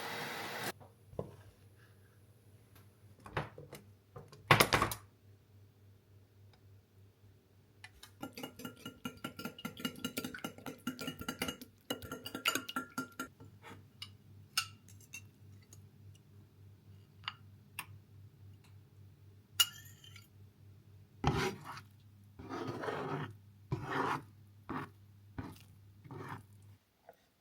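Kitchen utensils and dishes clinking, knocking and scraping, with one sharp clack about four and a half seconds in and a fast run of scraping strokes a few seconds later. A faint steady hum runs underneath.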